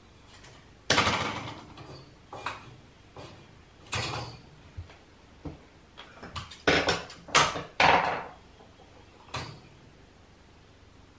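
Irregular knocks, clatters and rattles of an antique light fitting being handled and worked on at a table, the strongest about a second in and in a cluster near two-thirds of the way through.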